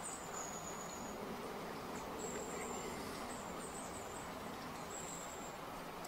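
A thin, high-pitched insect buzz that comes and goes in short spells of about half a second to a second, over steady outdoor background noise.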